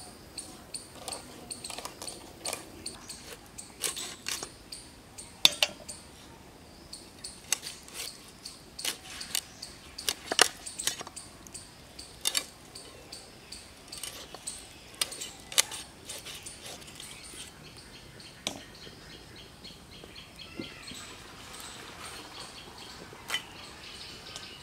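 American carp being scaled against a boti's curved blade: a run of sharp, irregular scrapes and clicks, coming thickest in the first two-thirds and thinning out later. Birds chirp faintly, mostly near the end.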